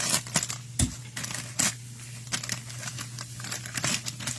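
Trading card pack wrappers crinkling and tearing as packs are opened and the cards handled: several sharp rustles, with a dull thump just under a second in.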